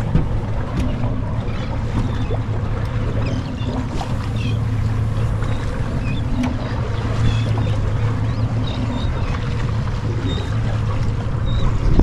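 Wind and choppy water around a bay boat, with a steady low hum. Scattered short calls of feeding seabirds sound overhead.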